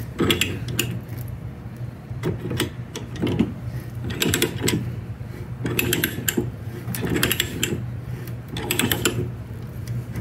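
Hand-operated ratcheting pipe threader being worked in strokes on a pipe held in a vise, its ratchet clicking in short runs about six times, roughly once a second or so, over a steady low hum.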